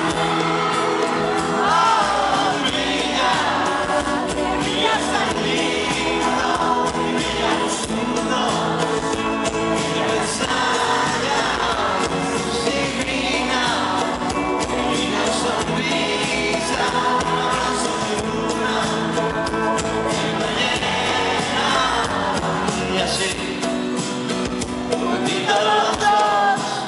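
Live band music recorded from within the crowd: a male lead singer sings over electric guitar and keyboards, with the music running steadily throughout.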